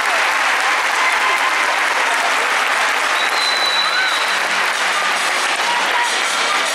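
Audience applauding, with scattered shouts and a brief high whistle about three seconds in.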